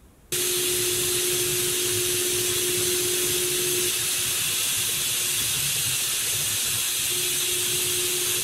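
Air spray gun spraying paint: a loud, steady hiss with a steady low tone under it, starting abruptly just after the start and cutting off abruptly near the end.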